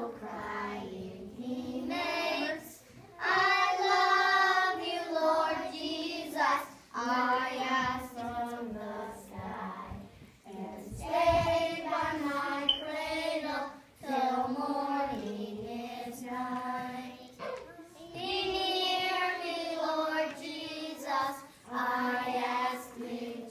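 A group of young children singing a song together, line by line with short breaks between phrases.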